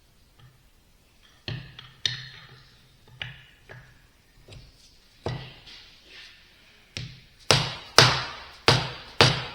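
Metal pump parts being knocked down into a vane pump housing: a series of about a dozen sharp, irregular knocks, growing louder over the last few seconds.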